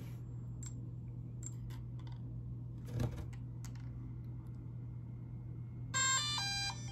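DJI Air 2S drone powering on: a few light clicks, then about six seconds in the drone's startup chime, a quick run of stepped beeping notes. A steady low hum sits underneath.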